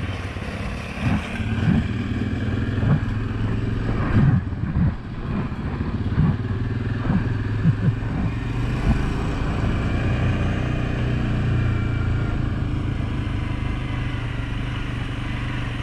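Suzuki King Quad 750's single-cylinder four-stroke engine running steadily on the trail. Through the first half there is a run of short knocks and rattles, then it settles into even running.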